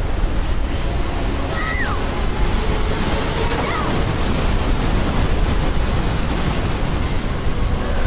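Loud, steady rush of a torrential river and waterfall, with a woman's short cries about two seconds in and again near four seconds.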